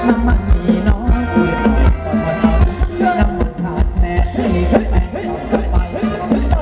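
Live Thai ramwong (Phetchaburi circle-dance) band music: a quick, steady beat of drums and shaken percussion under a melody line.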